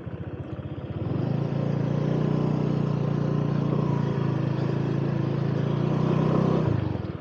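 Honda Click 125 scooter's single-cylinder engine ticking over, then opened up about a second in and running steadily at higher revs for about five seconds before easing back near the end.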